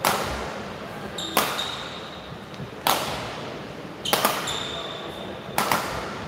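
Badminton rally: rackets strike the shuttlecock about every second and a half, each hit echoing in the large hall, with shoes squeaking on the court between shots.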